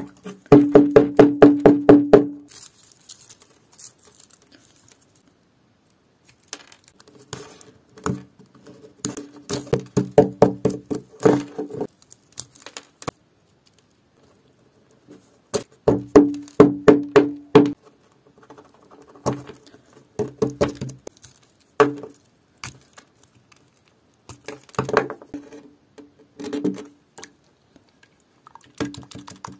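Dried mud crust crunching and crackling as it is broken and picked off a piece of jewelry by hand, in bursts of rapid crisp taps a few seconds long with quiet gaps between.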